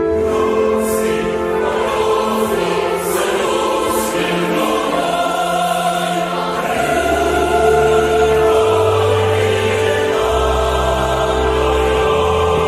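Choral music: a choir singing long held chords over a low bass line that moves in slow steps.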